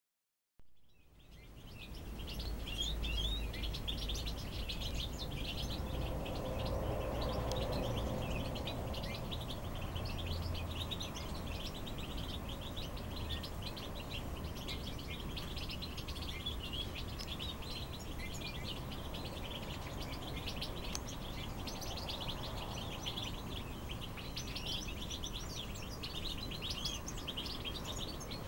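Songbird nestlings begging with a dense, continuous stream of rapid high chirps. A low rumble runs under the first ten seconds or so.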